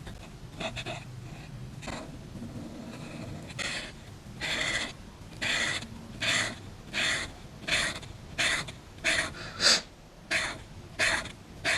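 Soft painting strokes rubbing across a surface: a few faint ones, then from about four seconds in a steady run of short scratchy strokes, about one and a half a second.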